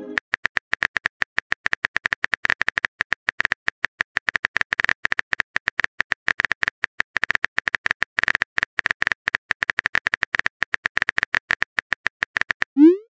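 Phone on-screen keyboard typing sound, a rapid, uneven stream of short, sharp clicks, one per letter as a message is typed.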